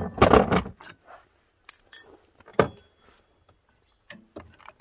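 A short loud clattering burst right at the start, then several separate sharp metallic clinks and clicks as the Honda Dio's variator parts (the toothed outer pulley half and its nut and washer) are handled and pulled off the crankshaft by hand.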